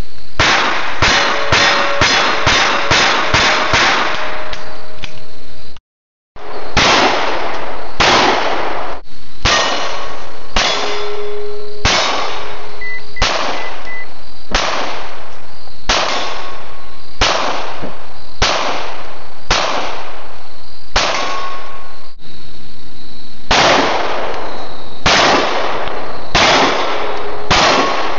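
Pistol shots at steel targets: a quick string of shots, then, after a brief dropout, single shots about once a second. Many shots are followed by the clang and short ringing of a struck steel plate.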